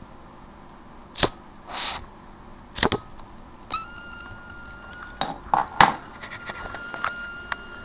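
Handling noise: a series of sharp knocks and clatters as small hard objects are picked up and set down, with a short scrape about two seconds in. A faint steady high whine starts about halfway through.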